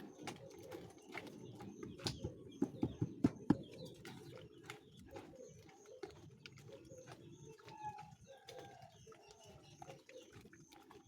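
Chickens clucking with short, low calls, among many scattered light clicks and taps. A run of louder knocks comes about two to three and a half seconds in.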